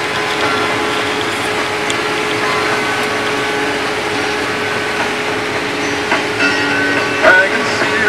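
Combine harvester running steadily while harvesting corn, heard from inside the cab as an even drone with a constant hum. A radio plays in the cab, and music comes in over the drone for the last two seconds or so.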